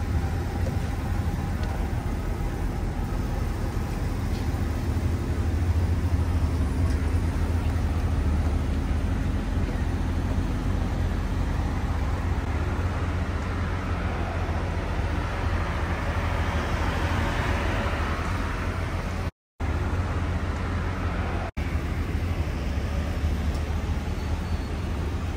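City street traffic: a steady low rumble with a passing vehicle swelling and fading about two-thirds of the way through. The sound cuts out for an instant twice shortly after.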